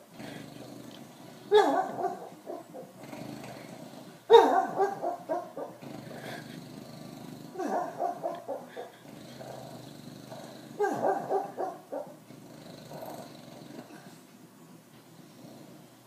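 French bulldog lying on the floor making a rough, drawn-out grumbling noise in four bursts, about one every three seconds.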